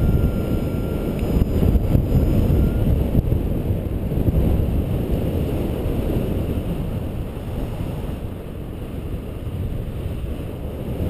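Airflow buffeting the microphone of a paraglider pilot's camera in flight: a steady, fluctuating low rush, a little louder in the first half. A faint steady high tone sounds for the first three seconds or so.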